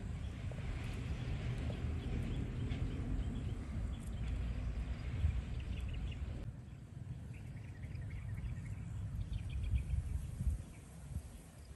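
Outdoor pondside ambience: a steady low rumble with faint short bird chirps, the chirps coming in quick clusters in the second half. The background shifts abruptly about halfway through.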